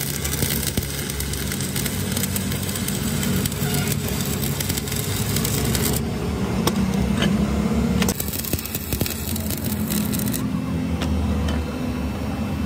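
Stick welding on an old steel axle shaft: the electrode arc hisses as a dense noise, over a steady low hum. The hiss drops back twice, about six seconds in and again near the end, and is loud again in between.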